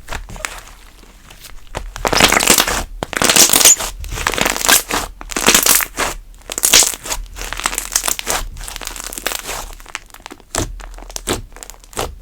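Hands squishing and stretching cream slime, making irregular sticky crackles and squelches. The loudest bursts come in the first half, followed by a run of quicker small clicks and pops.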